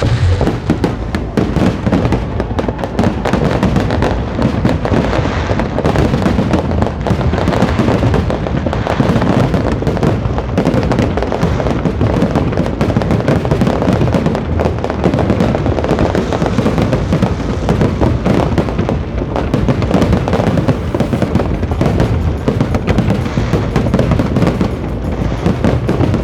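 A fireworks display: a dense, continuous run of bangs and crackles, with music playing alongside.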